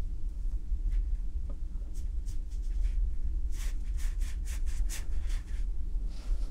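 Watercolour brush strokes on paper: a run of short, quick scratchy strokes from about two seconds in until past five seconds, over a steady low hum.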